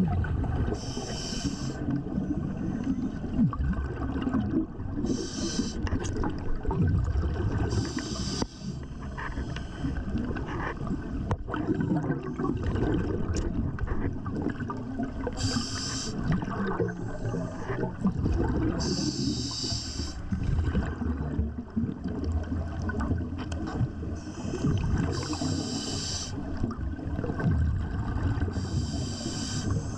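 Underwater ambience as picked up by a diver's camera: a steady low rumble of moving water, with a short hiss of exhaled scuba bubbles every few seconds.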